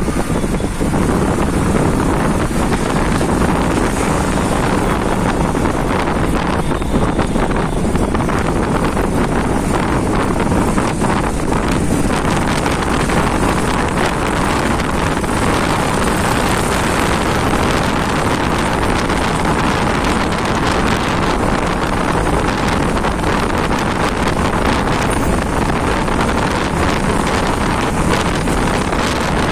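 Wind buffeting the microphone of a moving motorcycle over its running engine and road noise, loud and steady throughout.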